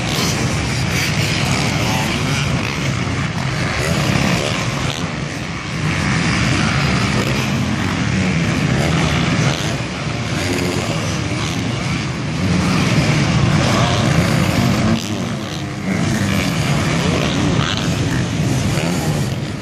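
Off-road motocross bike engines running hard on a dirt track, their pitch rising and falling with the throttle as riders pass.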